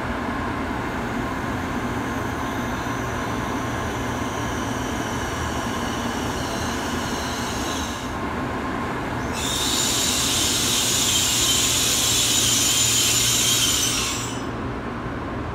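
N700-series Shinkansen trains on the platform tracks: a steady rumble of rolling stock, then from about nine seconds in a louder high hiss with squealing tones as a train slows alongside the platform, dropping away quickly near the end.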